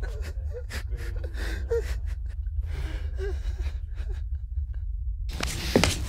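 A person gasping for breath in short, uneven gasps over a steady low rumble. About five seconds in, after a brief hush, a loud burst of noise starts.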